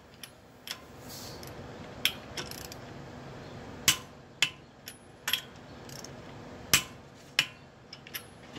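Sharp metallic clicks and clinks at uneven intervals, about a dozen, from a socket and lug nuts as a car wheel's lug nuts are run on by hand before torquing. The loudest come about four seconds in and just before seven seconds.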